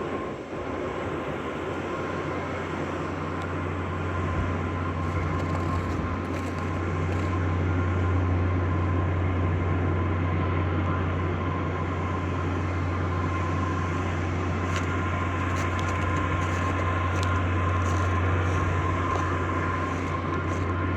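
Grocery store's generator running continuously: a steady low hum with a thin, fainter high whine above it.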